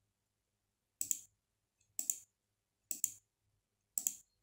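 Computer mouse button clicked four times, about a second apart.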